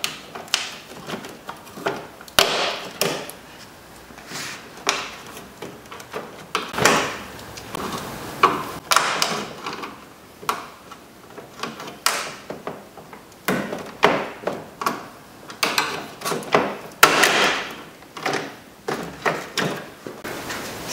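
Plastic push-pin clips being pried out of a plastic front engine-bay panel with a flat-blade screwdriver, and the panel worked loose and lifted off. An irregular string of clicks, snaps and scraping plastic rubs.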